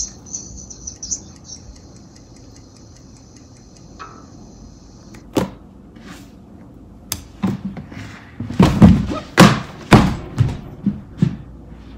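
A faint high-pitched tone for about five seconds, then a few sharp knocks and a quick run of about ten loud thumps and bangs, as a person gets up and knocks against the chair and furniture.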